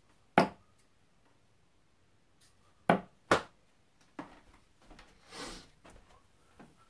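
Steel-tip darts striking a Winmau Blade bristle dartboard: three sharp impacts, one just under half a second in and two close together about three seconds in. Several quieter, softer sounds follow after about four seconds.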